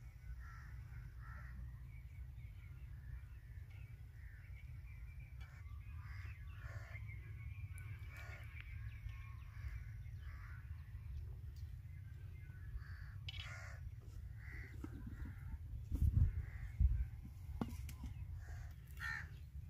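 Crows cawing now and then over a low, steady rumble, with a few dull thumps about sixteen seconds in.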